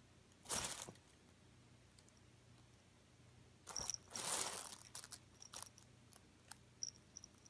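A cat scrambling in and out of a plush fabric pet tent on carpet: a brief rustle about half a second in, a longer scuffle of paws and fabric around four seconds in as it lunges out, then a scatter of light clicks and small metallic clinks from its collar tag as it settles back.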